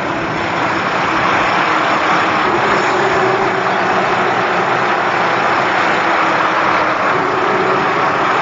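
Car at high speed heard from inside the cabin: the engine running hard under heavy wind and road noise, a loud steady rush with a faint engine tone showing again near the end.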